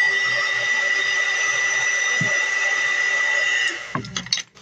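Handheld electric hot-air blower running steadily with a high whine over its rushing air, switched off about three and a half seconds in. It is heating plastic model parts to soften them for bending.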